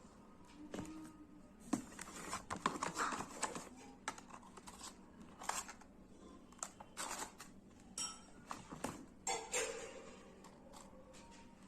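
Close-miked eating of pizza and burger: bites and chewing, heard as irregular sharp clicks and short crunchy bursts.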